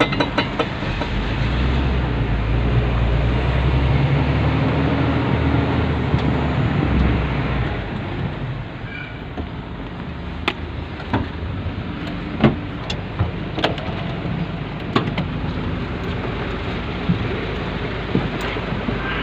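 Fire truck driving: engine and road noise with a heavy low rumble for the first several seconds. Then the rumble eases and scattered sharp knocks and rattles follow.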